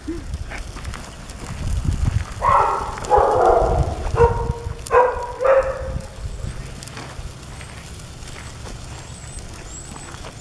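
Pet stroller wheels rolling over rough, gritty pavement with a low uneven rumble. Near the middle, a run of five short pitched calls stands out over it.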